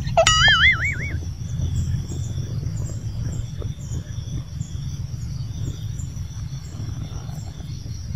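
Outdoor ambience: a steady low rumble with faint high chirps repeating a couple of times a second. It opens with a short wavering, whistle-like tone in the first second.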